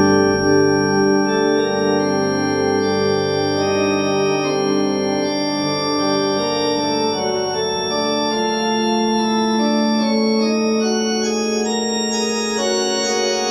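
Two-manual electronic organ playing sustained chords that change every second or so. A deep pedal note dies away at the very start, and a long low note is held under the chords from about halfway through.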